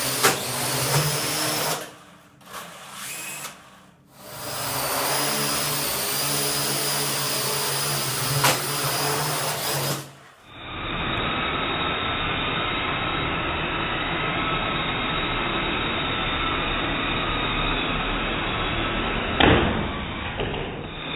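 Small quadcopter drone's motors and propellers whirring steadily in flight, with sharp knocks about a second in, around eight seconds and near the end as it strikes the wall or floor. The whir drops out briefly twice.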